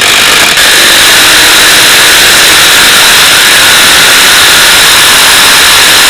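Impact wrench hammering steadily and very loudly on the center screw of a three-jaw gear puller, forcing a seized cone out of a car's suspension compression arm.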